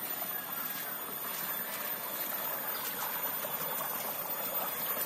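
Water rushing steadily down a small concrete irrigation channel.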